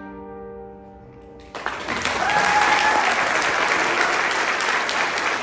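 The last chord of the song dies away, and about a second and a half in an audience starts applauding loudly, with a brief cheer soon after.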